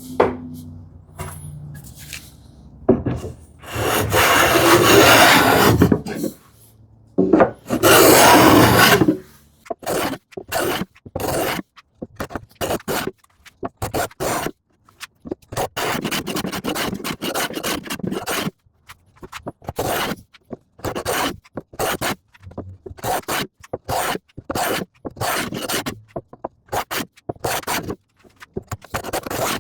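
Handmade rabbet plane scraping along ash as it cuts a rebate: two long strokes, then a steady run of short, quick strokes.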